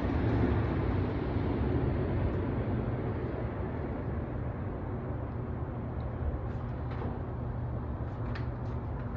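Steady low background rumble with a faint hum, easing slightly a few seconds in, with a few faint clicks near the end.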